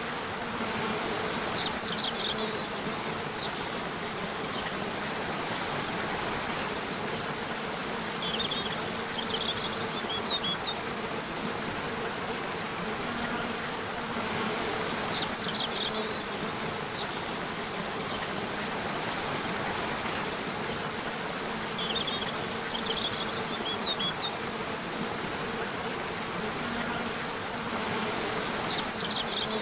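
Nature ambience: a steady buzzing of bees over an even rushing background, with small clusters of short high chirps recurring every six to seven seconds.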